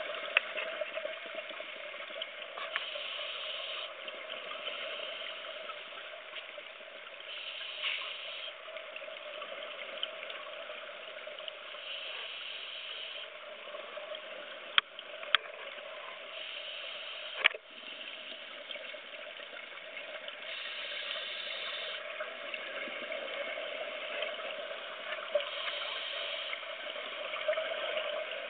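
Underwater sound of a scuba diver's regulator: exhaled bubbles gush out every four to five seconds over a steady underwater hiss. A few sharp clicks come about halfway through.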